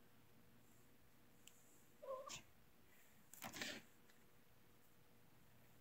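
Mostly near silence; about two seconds in, a house cat gives one short, faint meow, and a second later there is a brief noisy rustle.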